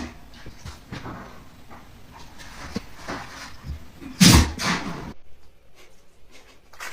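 Dog sneezing: one sharp, loud burst about four seconds in, followed at once by a smaller one, with softer scattered noises before it.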